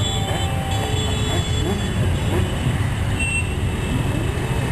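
Many motorcycle and scooter engines running as a column of bikes rides slowly past, a steady low rumble with engines revving up and down.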